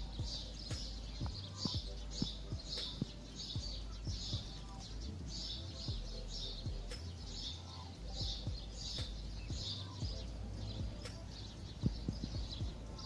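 Birds chirping over and over, two to three high chirps a second, over a low rumble of gusty wind on the microphone.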